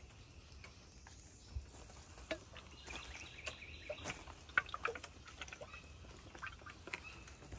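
Faint spritzing of a hand-pump pressure sprayer misting diluted bleach onto wet wooden boards, with scattered light clicks and ticks.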